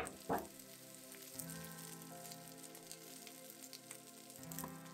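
Tofu, carrots and pointed cabbage sizzling faintly in sesame oil in a frying pan while being stirred with a wooden spatula, with two short knocks right at the start. Soft background music runs underneath.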